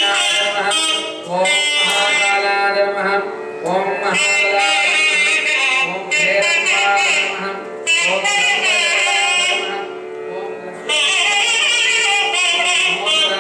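Indian devotional song: melodic singing in phrases of a few seconds over instrumental accompaniment.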